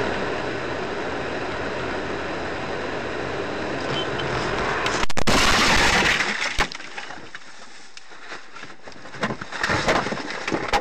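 Car cabin noise while driving on a snowy road. About five seconds in comes a sudden loud crash and a rushing, scraping noise lasting about a second and a half as the car leaves the road and goes over. Then scattered knocks and rattles.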